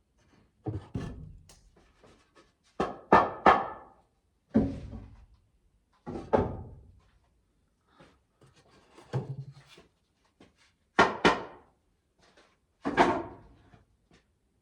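Wooden boards being taken off and handled: a series of about ten sharp wooden knocks and thunks, some coming in quick pairs, with short gaps between.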